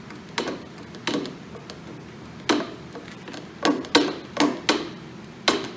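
About eight sharp metal knocks at an uneven pace, the cracked dry cylinder sleeve of a Ford TW-20 engine block being driven the last little way out of its bore.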